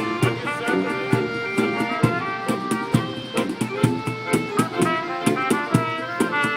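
Balkan brass street band playing a lively tune: sousaphone bass and trumpet melody with accordion, over a steady hand-drummed beat on a cajón.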